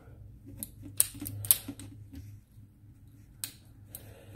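Sharp clicks and snaps of small plastic and metal parts as a Baofeng UV-5R handheld radio's circuit board and metal chassis are worked free of its plastic front housing. A quick cluster of clicks comes in the first two seconds, then two more near the end.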